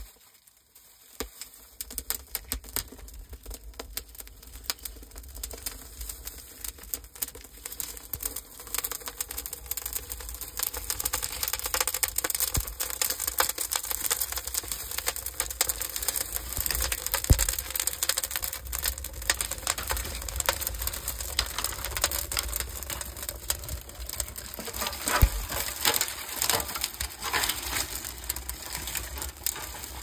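Dry straw and twigs crackling as they catch fire in the firebox of a clay bread oven, with dry straw rustling as a hand stuffs more in. The crackling thickens over the first ten seconds or so and then holds, over a low rumble.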